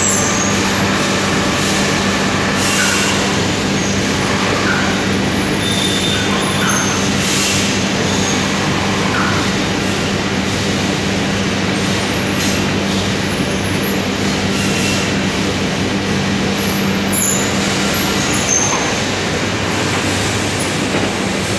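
Steady din of machinery in a wire acid-cleaning plant: a constant low hum under a dense rushing noise, with faint short squeaks now and then.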